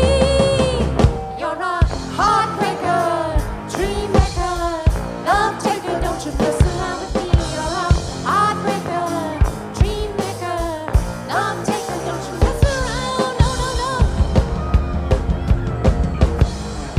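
Live rock band playing loudly: an electric lead guitar solos with bent, sliding notes over a driving drum kit of snare, bass drum and cymbals. The drums grow heavier and steadier near the end.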